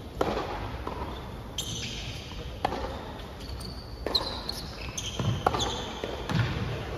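Tennis ball struck back and forth by racquets in a doubles rally on a hard court: a string of sharp pops about a second to a second and a half apart, with a few short high shoe squeaks.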